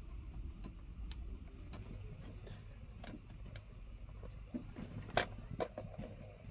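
Hands working bread dough on a wooden board: scattered light taps and clicks as rounds of dough are pressed and set down, with one sharper click about five seconds in, over a low steady rumble.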